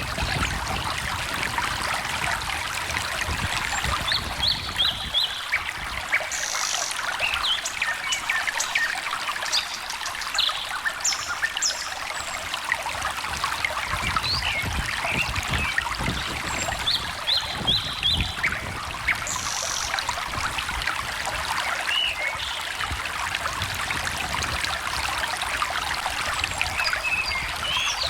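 A small stream trickling and gurgling, with birds chirping over it: several short runs of three or four quick high notes scattered through.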